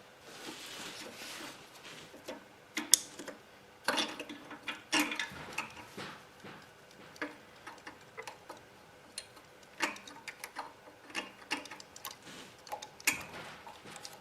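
Irregular small metallic clicks and knocks of hand work on a Honda EM3000 generator's carburetor as it is worked loose and pulled off the engine.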